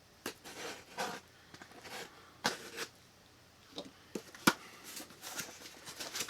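Packaging being handled as a shipping box is opened: scattered rustles and light knocks, with one sharp click about four and a half seconds in.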